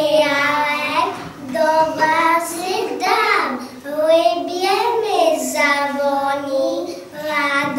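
A young girl singing unaccompanied, in phrases of held notes with short breaks between them.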